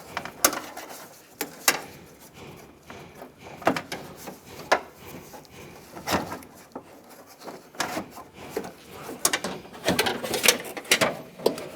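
Irregular clicks, knocks and rattles of a pickup's door latch assembly and its rods being worked loose inside the steel door, with a busier run of knocks about nine to eleven seconds in.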